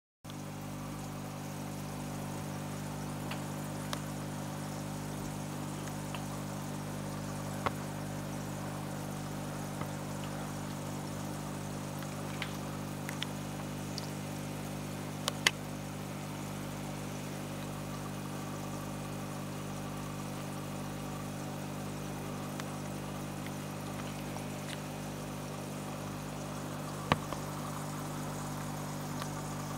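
Aquarium filter running: a steady electric hum with a faint wash of moving water. A few sharp clicks come through it, the loudest about halfway through.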